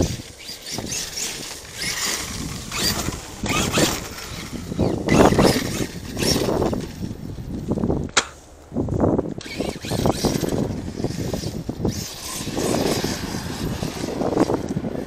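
Arrma Kraton 8S RC truck being driven in bursts of throttle, its brushless electric motor running up and dropping off every second or two, with a sharp crack about eight seconds in.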